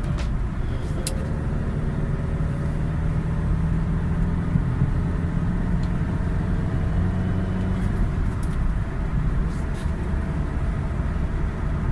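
Chevrolet Captiva driving on a test drive after a front wheel hub replacement, heard from inside the car: steady engine and tyre noise with a low hum that shifts a little in pitch as it gets under way.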